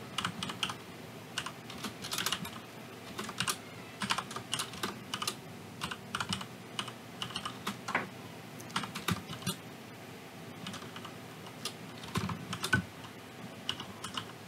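Typing on a computer keyboard: irregular key clicks in short runs, with a lull of a couple of seconds a little past the middle.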